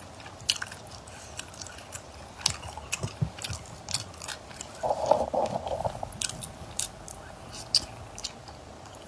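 Close-miked eating sounds of spicy braised shellfish: wet chewing and sharp mouth clicks and smacks, with a louder, second-long patch about five seconds in.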